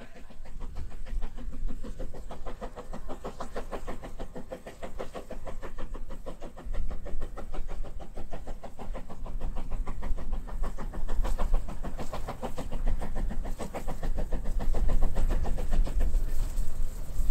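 DR Class 99.23 2-10-2 tank steam locomotive No. 99 236 working a train: a quick, even run of exhaust chuffs from the chimney, with wind rumbling on the microphone.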